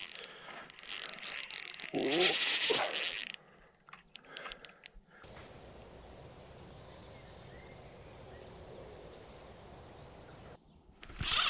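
Fishing reel's ratchet clicking rapidly as a fish pulls line off the spool, loud for about the first three seconds with a few scattered clicks after, then a faint steady hiss for several seconds, and the rapid clicking starting again near the end.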